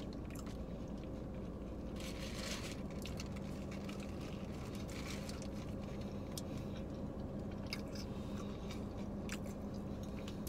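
A person chewing and biting into a crispy fried chicken sandwich, a Popeyes spicy chicken sandwich, with scattered crunches over a steady low hum.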